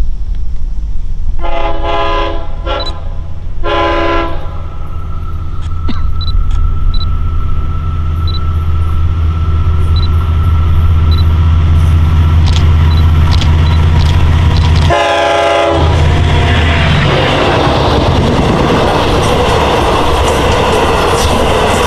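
Long Island Rail Road diesel passenger train, an EMD DM30AC locomotive hauling Kawasaki C3 bi-level cars, approaching and passing. It sounds its horn in three blasts in the first few seconds and one more short blast about 15 s in, while the low diesel engine rumble builds. From about 16 s the bi-level cars rush past with steady wheel and rail noise.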